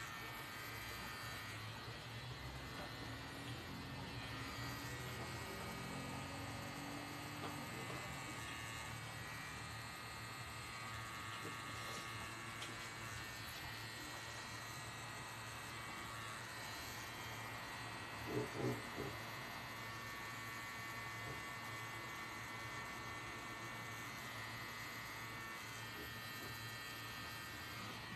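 Pen-style tattoo machine running with a steady electric buzz while tattooing. A couple of short, louder sounds come about two-thirds of the way through.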